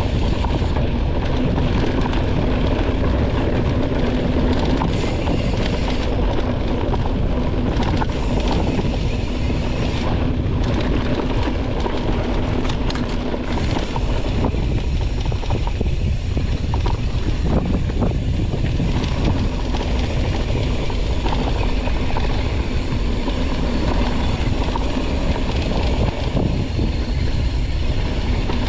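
Mountain bike descending a dirt trail at speed: steady wind noise on the microphone, with the tyres and bike rattling over rough ground.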